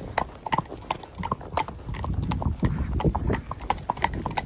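Horses' hooves clip-clopping at a walk on a tarmac road, about three sharp knocks a second in an uneven rhythm, over a low rumble.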